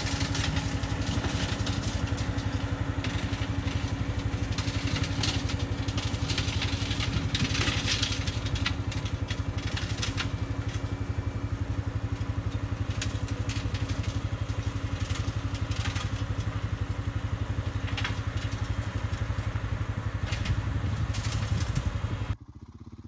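Skid-steer loader's diesel engine running steadily under load while brush-cutting, with scattered snaps and crackles of brush being cut. The sound cuts off abruptly near the end, leaving a much quieter hum.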